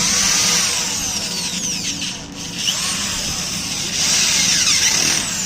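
Angle grinder's electric motor running in bursts, its high whine rising and falling in pitch, with a brief drop about two seconds in. It is running on a newly replaced bearing and carbon brushes.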